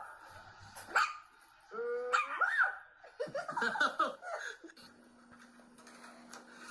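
A dog barking and yipping: a drawn-out high cry about two seconds in, then a quick run of short barks. A steady low hum runs under the last couple of seconds.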